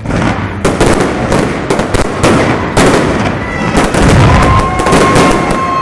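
Aerial fireworks shells bursting in a rapid, dense string of loud reports, several a second. A steady high tone joins about four seconds in and holds to the end.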